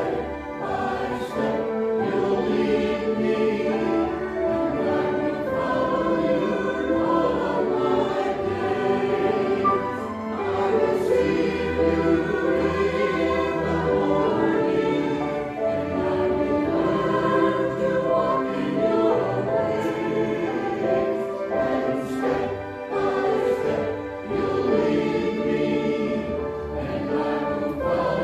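Small mixed church choir of men and women singing an anthem together, without a break.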